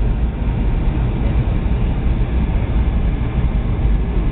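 Boeing 757-200 cabin noise while descending on approach: engine and airflow noise heard from inside the passenger cabin as a steady, low rumble.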